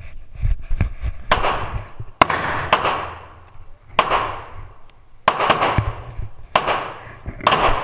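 Gunshots on an indoor firing range: about nine sharp, irregularly spaced shots, some in quick succession, each with a long ringing echo off the range walls.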